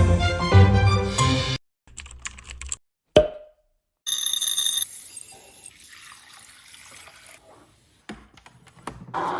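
Music that stops about a second and a half in. It is followed by a string of short, separate sounds with silent gaps between them: a quick run of clicks, a single sharp click, and a longer sound that slowly fades away.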